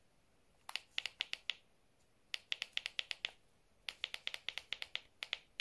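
Three quick runs of light, sharp clicks from the power button on a Ninebot by Segway kick scooter's dashboard being pressed over and over. The scooter does not power up: the controller is water-damaged and has failed.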